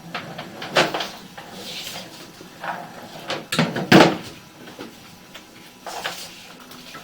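A string of irregular clunks, knocks and scrapes, like objects being handled or set down, loudest about a second in and again about four seconds in.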